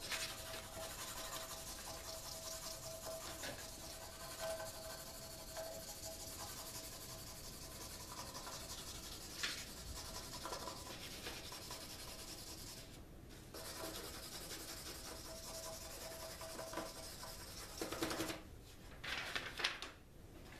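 Pencil lead scribbling rapidly back and forth across the back of a sheet of printer paper, coating it with graphite for a transfer, with a brief pause about two-thirds of the way through. Near the end come a few louder rustles and knocks as the paper is handled.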